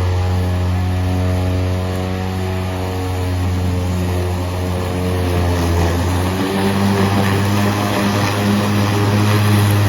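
EGO battery-powered lawn mower running, its motor and spinning blade making a steady hum; about six and a half seconds in the tone shifts and a rougher rushing noise comes in.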